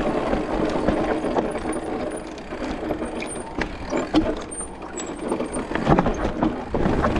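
Electric mountain bike riding down a rough dirt trail: continuous tyre and ride noise with the bike rattling and many short knocks and clicks over rocks and roots, and a few harder hits near the end.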